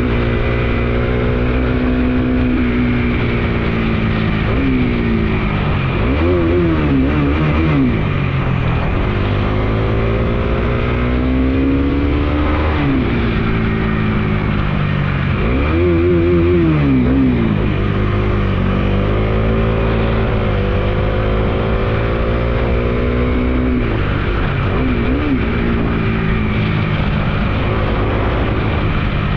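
Bajaj Dominar 250's single-cylinder engine pulling on the open road, its pitch climbing with the revs and dropping at each gear change, several times over, with steady wind and road noise underneath.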